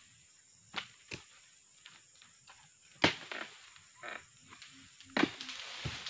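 Dodos pruning chisel on a long pole chopping into oil palm frond bases: four sharp strikes, the loudest about three seconds in, with rustling of dry fronds after the last one.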